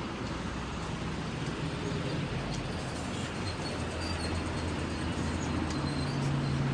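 A motor vehicle's engine running steadily with road noise, a low hum that grows a little louder with a new deeper tone coming in near the end.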